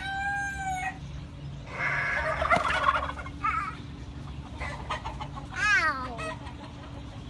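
Roosters crowing and hens clucking: a held crow note right at the start, rougher calls about two seconds in, and another crow sliding steeply down in pitch near the six-second mark.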